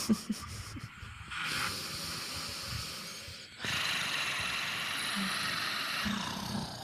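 Two long breathy, raspy growls exhaled from the belly, the second starting about three and a half seconds in.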